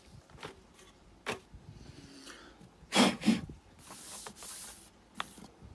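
Handling noise from a plastic pond bottom-drain dome being pressed and shifted on a stone worktop: scattered knocks and clicks, two sharp knocks about three seconds in, and a short scraping rub a little after.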